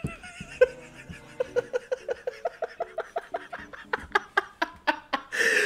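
A man laughing hard in a fast string of short, high-pitched bursts, about six a second, ending in a sharp wheezing breath.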